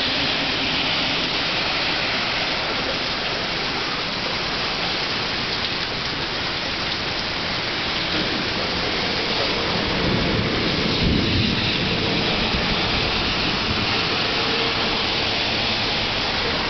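Torrential rain pouring steadily in a thunderstorm, with a low rumble of thunder building about ten seconds in.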